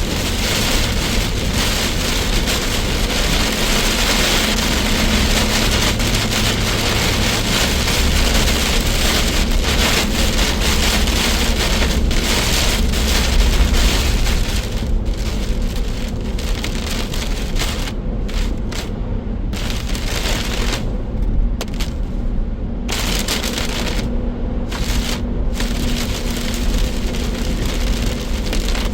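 Torrential thunderstorm rain pouring down in a dense, steady hiss over a strong low rumble. Over the second half the higher part of the hiss thins and cuts in and out.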